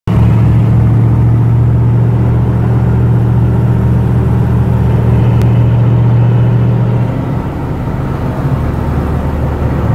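A car engine held at steady raised revs, heard from inside the cabin. About seven seconds in the note drops and turns rougher, and it comes back up near the end.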